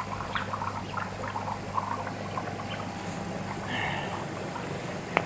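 Water moving and trickling in a koi carp pond, over a steady low hum, with a sharp click near the end.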